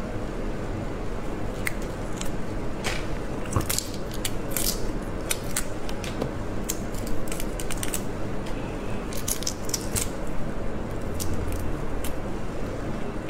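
Soy-sauce-marinated shrimp being pulled apart and peeled by hand: the shells crack and crackle in irregular clusters of sharp snaps and clicks.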